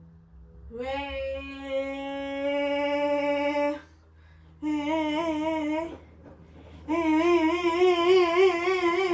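A voice humming three long held notes, the second and third wavering up and down.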